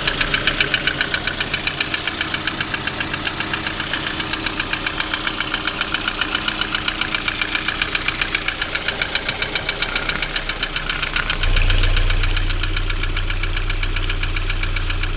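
Lada Priora engine idling with a rapid, even knocking that keeps time with the engine: the engine knock the owner is showing. A low hum joins about three-quarters of the way through.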